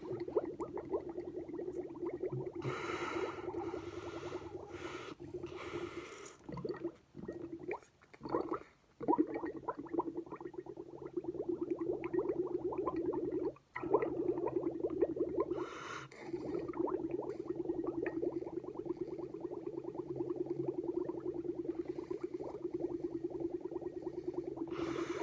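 Air blown through a drinking straw into a glass of milk: continuous rapid bubbling with a steady drone under it, which drops out briefly about three times near the middle. Several hissing breaths through the nose come in between, with the lips kept on the straw.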